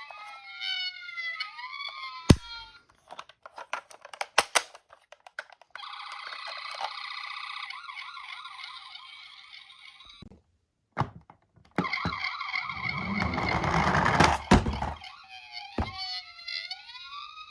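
Siren wailing, its pitch rising and falling, at the start and again near the end. Between the two wails come a run of sharp clicks, a few seconds of steady electronic tones, a brief silence, and a loud rushing noise that swells and then stops.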